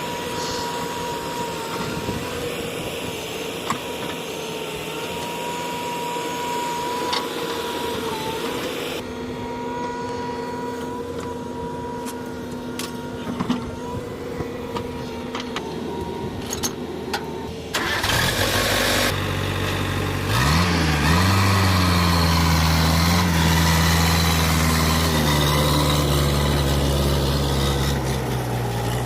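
Diesel engines of earth-moving machinery running steadily; about two-thirds of the way through the sound gets louder and an engine revs up quickly, dips, then settles into a strong, steady run.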